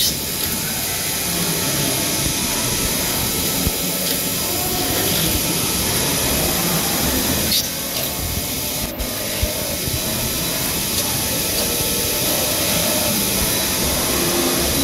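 Cincinnati MAG FTV2500 CNC vertical machining center drilling holes in a steel tube: the spindle and cutting make a steady machine noise under a continuous hiss of coolant spray, with a couple of brief clicks midway.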